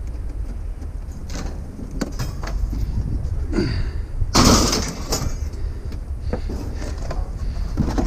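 Scrap metal being handled and dropped: a series of knocks and clanks, with one loud crash about four and a half seconds in, over a steady low rumble.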